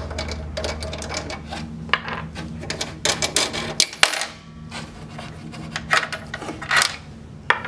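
Wing nuts being unscrewed by hand from the polarity terminals inside a MIG welder's wire-feed compartment, with irregular light metallic clicks and rattles from the nuts and cable lugs.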